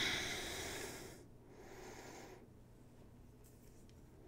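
Spray bottle misting a half-water, half-Windex mix onto a diamond sharpening plate: two hissing sprays, the first louder and about a second long, the second shorter and fainter.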